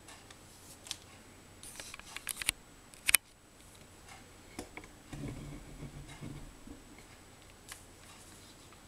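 Sharp plastic clicks and knocks from a PlayStation 3 controller being handled, the loudest about three seconds in, then a low steady hum for about a second and a half.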